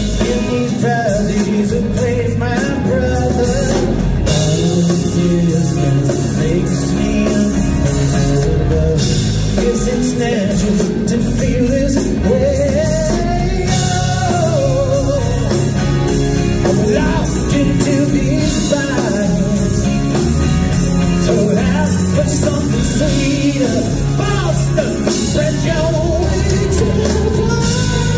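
Rock band playing live through a PA: electric and acoustic guitars, drums and keyboards under a sung lead vocal, recorded from the audience.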